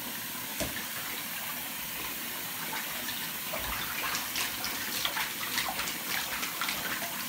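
Water running into a bathtub, with splashing as a dog is washed by hand in shallow water; the splashes come thicker in the second half.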